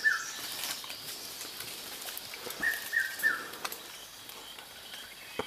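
A forest bird calling: three short, slightly falling whistled notes in quick succession, repeated after about three seconds, over faint background noise, with a sharp click near the end.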